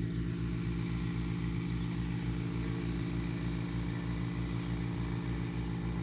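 Irrigation pump engine running steadily, with an even low chugging beat.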